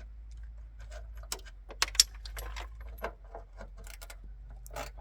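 Scattered light metallic clicks and clinks of hand tools and loose hardware being handled, a few sharper clinks about two seconds in.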